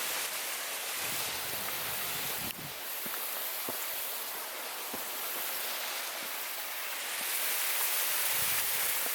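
Small mountain river rushing steadily, an even hiss of running water, with an abrupt shift in its level about two and a half seconds in.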